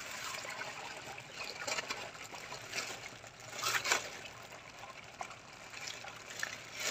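Water trickling and sloshing in a plastic basin as hands work through a plastic bag of caught fish, louder for a moment just under four seconds in.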